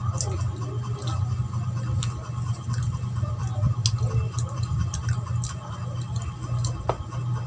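Scattered small clicks and crinkles of a leaf-wrapped budbud (sticky rice cake) being peeled open and eaten close to the microphone, over a steady low hum.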